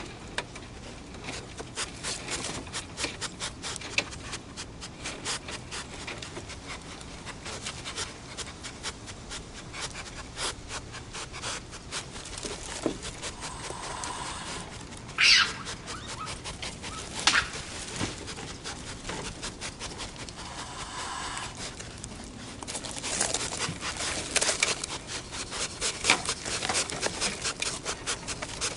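A raccoon scrabbling at a wire-mesh bird feeder: a dense, uneven run of small clicks and scratches of claws on wire, with one short high-pitched call about halfway through.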